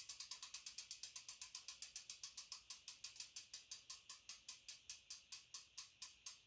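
Road bike's rear freehub ticking as the wheel spins down, its pawls clicking evenly and gradually slowing from about eight clicks a second to about four.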